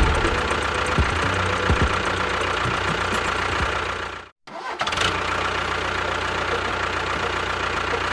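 An engine running steadily. About four seconds in, the sound cuts out completely for half a second, then resumes unchanged.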